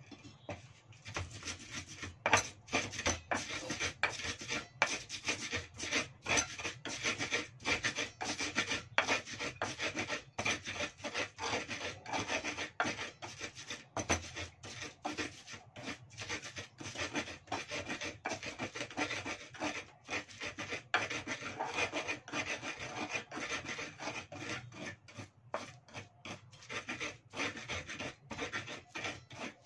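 Pestle (ulekan) grinding garlic into a paste on a cobek mortar: quick repeated scraping and rubbing strokes that start about a second in and keep going.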